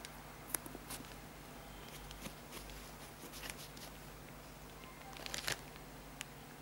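Hands handling a leather sneaker close to the microphone: scattered light taps and rustles, with a short cluster of crackly rustling about five seconds in, over a faint steady hum.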